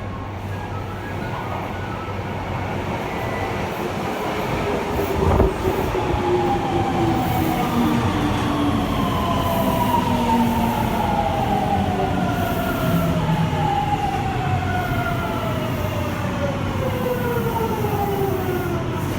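Hitachi GTO VVVF inverter and traction motors of a Fukuoka City Subway 2000-series car whining under power, several tones gliding mostly downward over a running rumble, with one sharp knock about five seconds in. The whine sounds dissonant because this car's inverter changes modulation slightly out of step with the other motor cars in the train.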